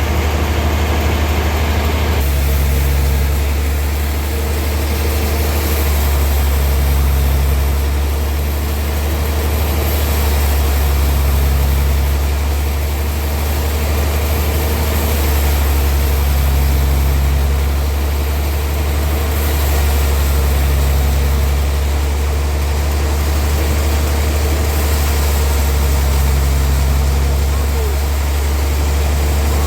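A sawmill's engine running steadily with a deep hum that swells and eases about every five seconds.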